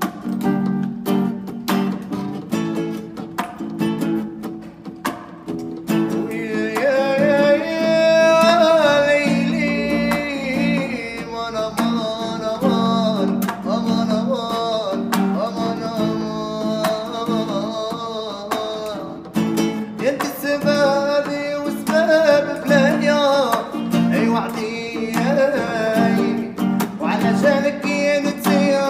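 A man singing in Arabic to his own plucked acoustic guitar. The guitar plays alone for about the first six seconds, then the voice comes in and carries on over the guitar, with a brief pause near the middle.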